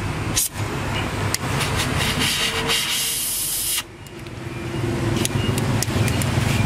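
Gas brazing torch hissing, the hiss cutting off suddenly about four seconds in as the flame goes out, then building again with a few sharp clicks as it is relit with a lighter. A steady low hum runs underneath.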